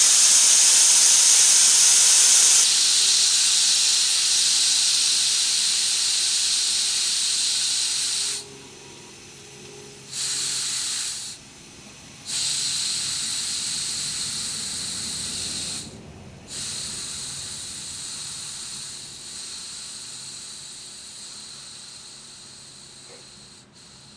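Compressed air hissing out of a Craftsman air compressor. It steps down a couple of seconds in, stops and restarts three times, and grows weaker as the tank pressure falls.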